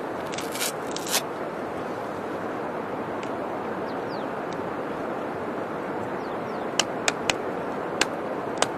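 Steady rush of flowing river water. Some brief scraping near the start, then five sharp knocks in the last couple of seconds as a dried coconut is struck against rock to break it open.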